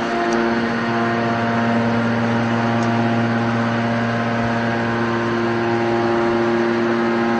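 Hydraulic scrap metal baler's power unit running with a steady hum, with a deeper drone joining from about a second in until near the end.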